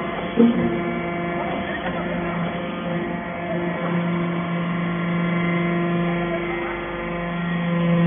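Steady electric hum of an aluminum chip briquetting press's hydraulic power unit running. It grows a little louder midway, and there is a short knock about half a second in.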